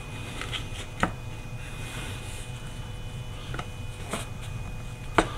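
A handful of short, sharp clicks and taps, the loudest near the end, as a soundbar's cloth grille is pressed back into place on its plastic body, over a faint steady low hum.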